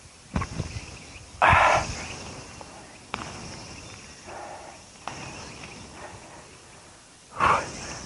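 Cut pine wood and branches being handled: a brief loud crash about a second and a half in and another near the end, with a few lighter knocks and a softer rustle between.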